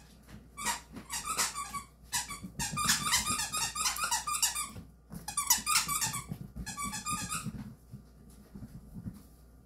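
A small dog's claws clicking and skittering on a hardwood floor as it dashes about, with some squeaks. The clicks come in three bursts over the first eight seconds.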